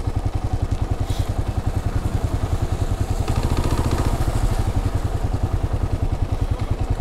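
Motorcycle engine ticking over at low revs while creeping in slow traffic, with a steady, even pulsing exhaust beat.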